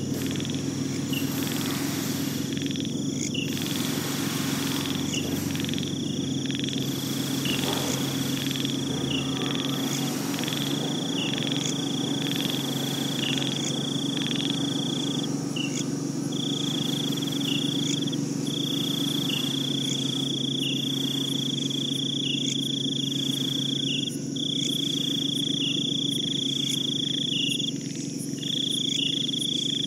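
Layered nature soundscape: an insect trill, like a cricket's, holding one high pitch in long stretches of a few seconds with short gaps between, over short chirps about once a second and a low steady hum.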